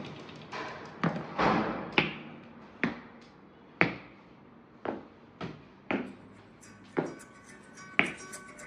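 Slow footsteps on a hard tiled floor, about one a second, each ringing briefly in a bare room. Near the end, soft guitar music begins.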